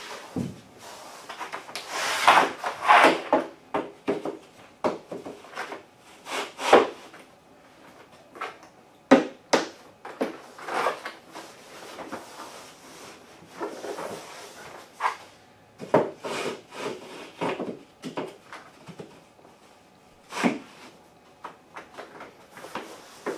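Drop-and-lock laminate planks being taken apart and laid back in place by hand: wooden knocks and scraping as boards are handled and slid over a dimpled plastic underlayment, in irregular bursts.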